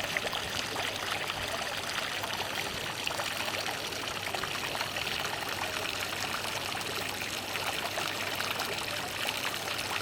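Steady running water, a dense continuous trickling and splashing.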